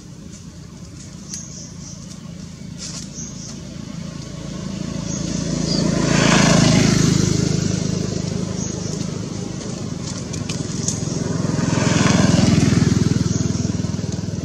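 Motor vehicles passing by twice, each one swelling up and fading away, the first about halfway through and the second near the end.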